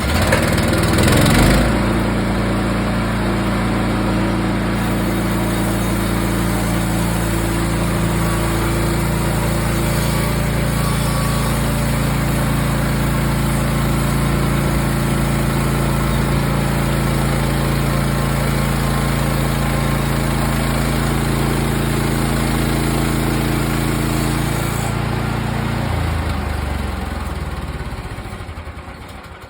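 Small petrol engine of a portable bandsaw mill running loud and steady as the mill makes a cut through a log. It comes up to speed in the first couple of seconds, then slows and fades out near the end.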